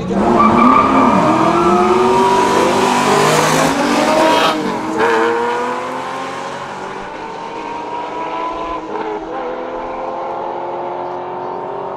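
A Lamborghini Murciélago's V12 and a red American muscle car's V8 at full throttle off a drag-strip start line. Their engine notes rise together, drop at an upshift about four and a half seconds in and again near nine seconds, then climb again. The sound grows fainter as the cars run away down the strip.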